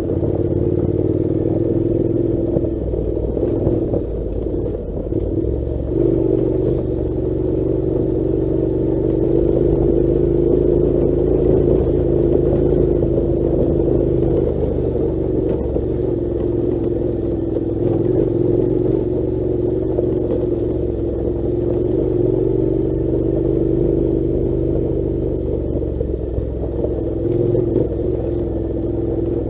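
Honda NC700 motorcycle's parallel-twin engine running steadily at low road speed on a rough gravel track. The engine eases off for a moment about three seconds in and picks up again about three seconds later.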